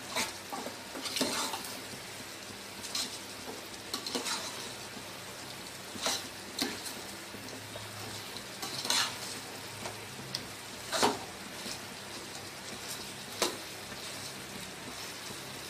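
Chicken masala sizzling as it fries in a large metal pot, stirred with a metal spoon that scrapes and knocks against the pot at irregular moments, about nine times.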